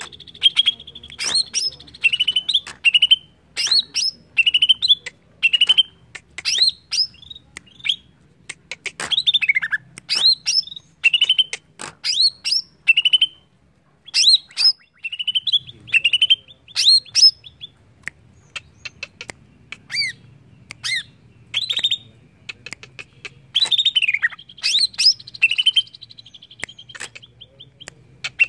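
Male cucak ijo (greater green leafbird) singing a loud, fast song of sharp whistled notes and sweeping phrases, the sharp 'tembakan' notes that keepers prize, broken by two short pauses about halfway through.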